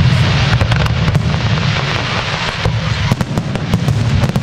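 Aerial firework display in full flow: a rapid, overlapping run of shell bursts and sharp bangs over a continuous deep rumble.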